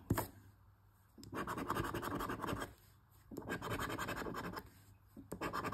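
Scratching the coating off a scratch-off lottery ticket in three rasping strokes, each lasting a second or so, with short pauses between them. There is a brief knock at the very start.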